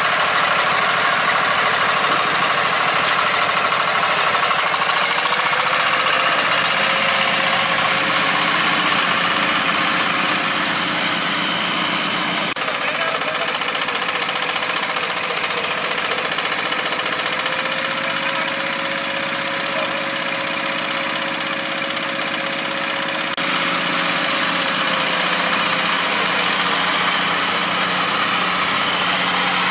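Engine of a small farm machine running steadily, with an even, pitched drone. The sound shifts abruptly twice, about twelve and twenty-three seconds in.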